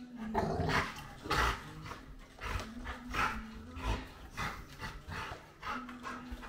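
Dog growling in rough play, with a string of short, noisy snarling bursts as it lunges and mouths.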